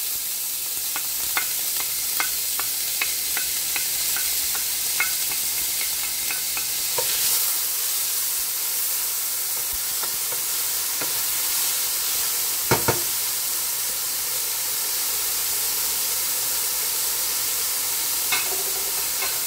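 Diced bell peppers and onion sizzling steadily in hot olive oil in a stainless steel skillet. A wooden spoon stirring them clicks against the pan about three times a second during the first several seconds, with a louder knock about two-thirds of the way through.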